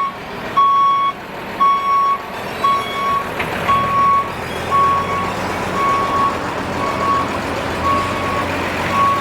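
Reversing alarm of a construction vehicle beeping steadily, about one half-second beep a second, over the running of its engine and general site machinery noise.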